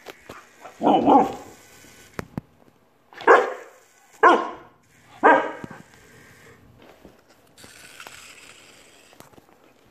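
Alaskan shepherd puppy barking four times: one bark about a second in, then three more about a second apart after a short pause.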